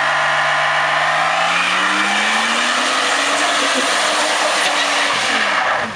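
Chevrolet TrailBlazer doing a burnout: the rear tyre spins on the asphalt with a steady hissing squeal while the engine revs climb slowly. The sound drops off sharply near the end.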